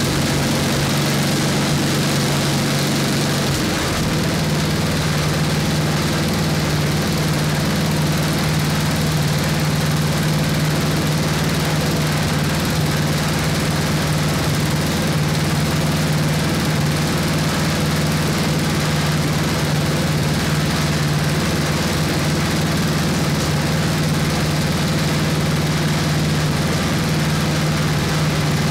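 1979 Toro 826 snowblower's 8 hp Briggs & Stratton single-cylinder four-stroke engine running steadily just after being started on partial choke. Its note shifts slightly about four seconds in, then holds even.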